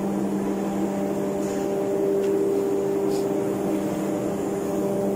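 Steady drone of ship engine-room machinery and ventilation: a constant low hum with a few faint metallic clinks.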